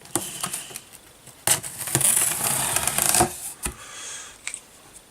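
Cardboard delivery box being opened with a knife: sharp clicks and knocks, then a loud tearing scrape of the blade through packing tape and cardboard for about two seconds, starting about a second and a half in, followed by a few more taps.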